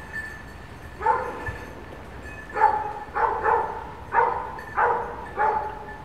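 Hunting dog barking repeatedly while working game in cover: a single bark about a second in, then barks coming about twice a second from about two and a half seconds in.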